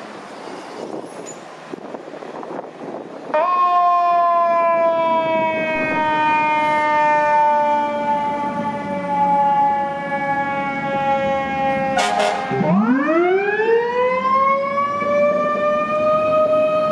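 Fire engine's Federal Signal EQ2B electronic siren with the low Rumbler tone pinned on. About three seconds in the siren comes on abruptly at a high pitch and slowly falls. Near the end there is a brief harsh blast, then the siren drops low and winds back up to a high, steady wail.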